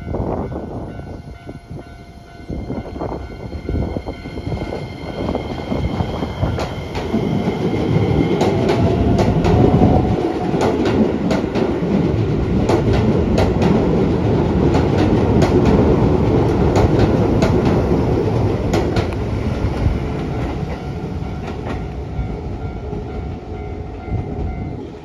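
A Keisei 3000-series electric commuter train pulling out of the station. Its motor whine rises in pitch as it speeds up, and its wheels clack over the rail joints, loudest as the cars pass through the middle stretch before the sound fades.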